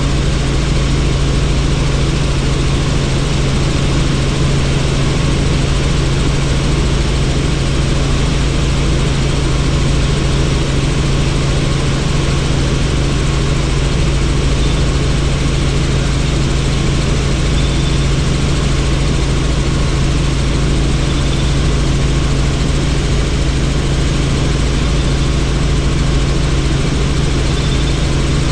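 Helicopter rotor and engine noise heard from inside the cabin in flight, steady and loud, with the wind of a doors-off cabin.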